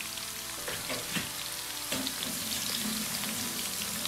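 Floured fish pieces frying in hot oil in a pan: a steady sizzle with scattered crackles and pops.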